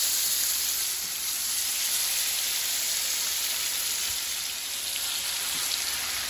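Marinated lamb chops frying in hot oil and butter in a nonstick pan: a steady sizzle with a few faint pops, easing slightly after the first second.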